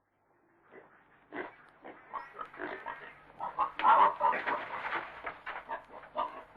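Pig grunting and oinking in a rapid, irregular run of short calls that starts about half a second in and is loudest around four seconds in.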